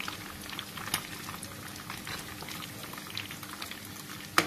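Batter-coated chicken livers deep-frying in hot oil: a steady bubbling sizzle with scattered small pops, and a single sharp click near the end.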